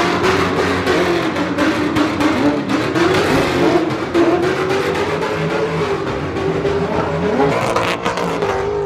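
Car engine revving through a modified exhaust, its note wavering up and down in pitch.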